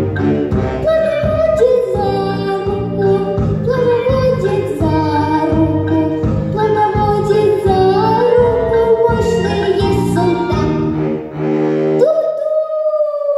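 A young girl singing a children's song into a microphone over a recorded backing track with a steady beat. About twelve seconds in the accompaniment stops and she holds one long final note.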